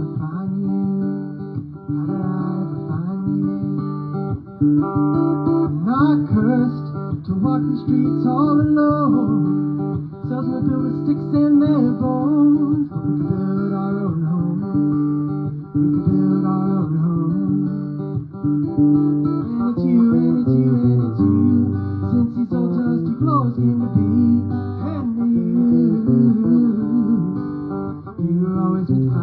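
Acoustic guitar played live, an instrumental stretch of a song with sustained notes and some sliding pitches.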